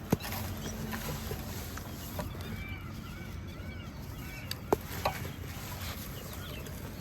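Water trickling over tiny pebbles: a steady burble with small bubbling plinks, broken by a few sharp clicks, one right at the start and two more past the middle.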